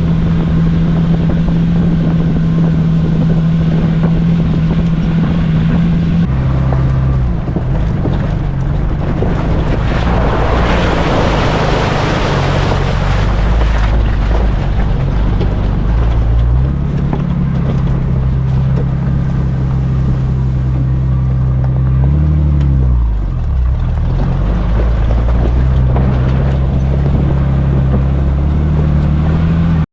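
A Jeep's engine running under way, heard from inside the cabin, with a steady engine note that drops about six seconds in and dips and climbs again around twenty-two seconds as the engine speed changes. A rush of wind and road noise swells for a few seconds in the middle.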